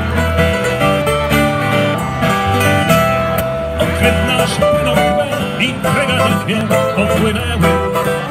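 Instrumental opening of a sea shanty played live by a small band: strummed acoustic guitar, a plucked mandolin melody and an electric bass guitar, with no singing yet.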